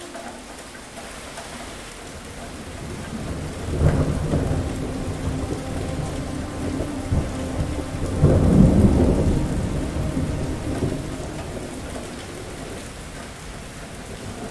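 Thunderstorm: steady heavy rain, with rolling thunder that breaks in sharply about four seconds in and peaks louder about eight seconds in, rumbling away over the next few seconds.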